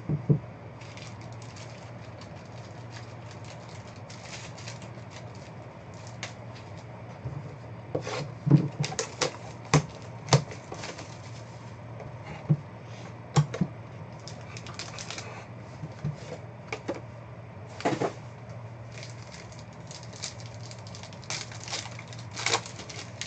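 A cardboard trading-card hobby box being handled and foil card packs torn open: irregular crinkles, clicks and taps, several sharp ones standing out, over a steady low hum.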